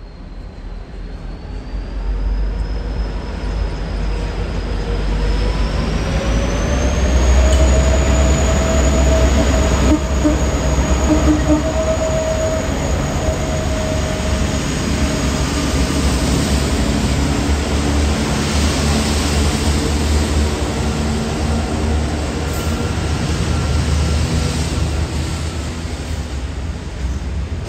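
Diesel freight locomotives, including VL-class VL356, passing under power: their engines run ever louder as they draw level, with a thin whine that rises in pitch about five to seven seconds in. In the latter part, wagons loaded with steel coils roll past over the rails.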